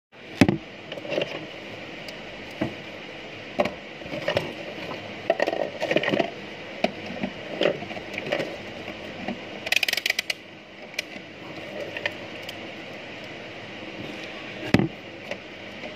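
Hands handling a small mobile phone, its battery and a digital multimeter on a wooden workbench: scattered clicks, taps and knocks, with a quick run of sharp clicks about ten seconds in, over a steady background hum.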